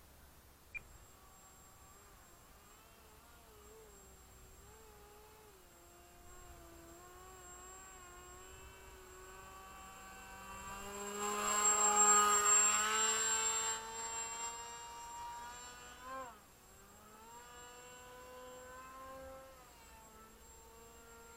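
Small RC foam plane's motor and propeller whine, its pitch rising and falling with the throttle. It grows much louder for a few seconds around the middle as the plane passes low and close, and swoops up and back down in pitch shortly after.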